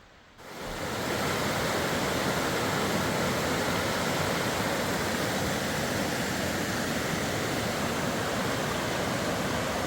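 Waterfall rushing, a steady roar of falling water that comes in abruptly about half a second in.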